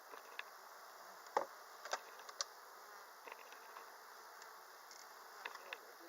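Honeybees buzzing steadily around an open hive, with a few light clicks and knocks, the loudest about a second and a half in.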